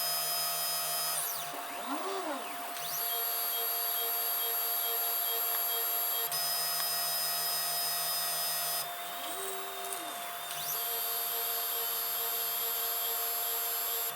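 3D printer's stepper motors whining steadily while the printer runs its BLTouch auto-leveling routine. Twice the steady whine gives way to a short tone that rises and then falls in pitch as an axis speeds up and slows down.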